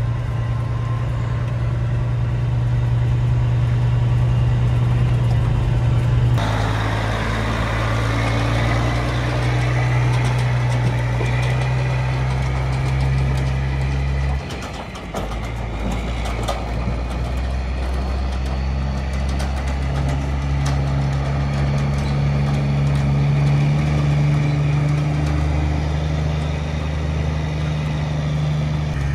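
Diesel semi-truck engine idling and running at low speed, a steady low note. The sound changes abruptly about six seconds in, and there is a brief drop with a few light clicks near the middle.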